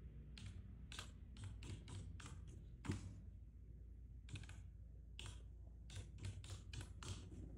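Typing on a computer keyboard: short runs of keystrokes as a string of digits is entered, with one sharper key strike about three seconds in.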